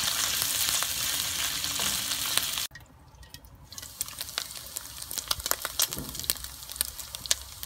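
Pork belly pieces frying and sizzling in their own rendered fat in a wok, stirred at first with a wooden spoon. About a third of the way in the sizzle drops off abruptly and becomes quieter, with many sharp crackling pops of spattering fat.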